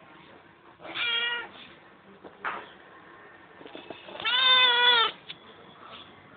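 A cat meowing twice: a short meow about a second in, then a longer, louder one about four seconds in.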